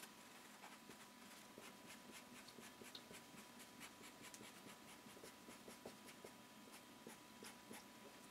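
Faint scratch of a felt-tip permanent marker on paper, drawing many quick short strokes, several a second.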